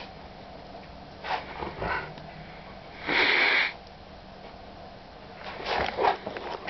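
Alaskan malamute dogs huffing and sniffing through the nose at close range while they play. There are a few short huffs, one loud breathy huff of about half a second just after three seconds in, and quick snuffling near the end as a muzzle comes right up to the microphone.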